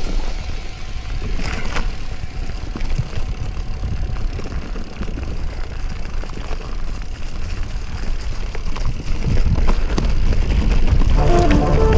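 Scott Spark 920 mountain bike rolling fast down a dirt singletrack: a steady low rumble of wind and tyre noise with scattered clicks and rattles as the bike goes over bumps. Music comes in near the end.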